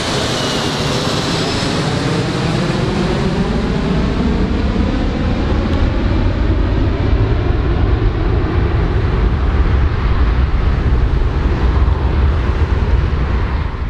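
Engines of a four-engine jet airliner flying away. A high whine slides down in pitch over the first few seconds, while a deep rumble grows steadily louder.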